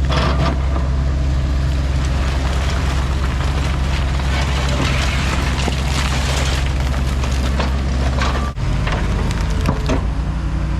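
Diesel heavy-equipment engine running steadily under load, with repeated knocks and crunches of broken concrete and debris being worked. About eight and a half seconds in, the sound breaks off abruptly and the engine drone carries on with a different pitch pattern.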